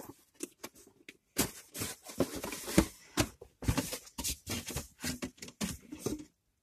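A cardboard subscription box and its packaging being handled and opened: irregular rustling, crinkling and tearing, cutting off abruptly near the end.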